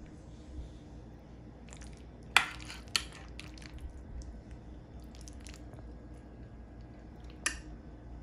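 Metal serving utensils working through a cheesy baked pasta dish, with a few sharp clinks of metal on the dish and plate. The two loudest clinks come close together about two and a half seconds in, and another comes near the end.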